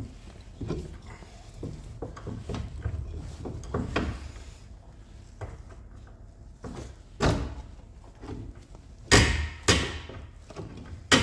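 Scattered metal knocks and clunks of hand tools working on a car's rear suspension hub as a fastener is cracked loose. A few sharper, louder knocks come about seven seconds in, twice around nine seconds, and once near eleven seconds.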